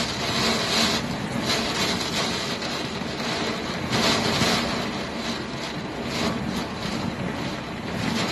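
Hurricane wind and driving rain: a loud, steady rushing noise that swells in gusts, strongest at the start and again about four seconds in.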